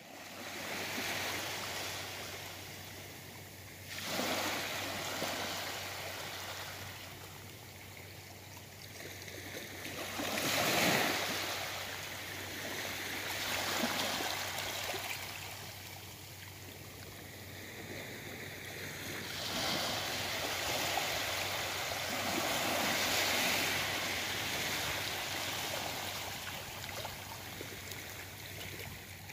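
Small waves lapping and washing up the shore, the surf swelling and fading every few seconds, with a faint steady low hum underneath.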